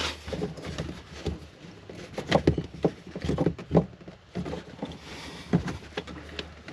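Irregular clicks and knocks of a caravan water pressure regulator and its plastic fittings being handled and fitted back into place.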